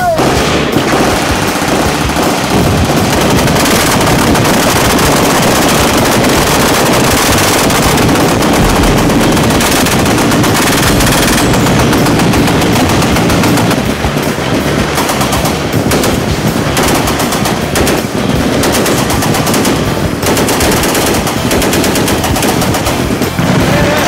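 Belt-fed machine gun firing long bursts of automatic fire, nearly without pause, mixed with more gunfire from the firing line around it.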